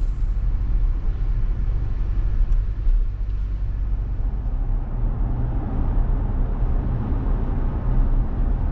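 Land Rover Discovery 4 on the move: a steady low rumble of engine and road noise.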